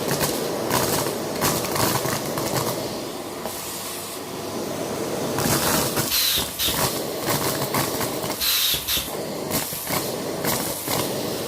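Vacuum cleaner running: a steady motor hum broken by irregular rushes of hissing suction as the nozzle is moved over a surface, with a brief whistle twice in the second half.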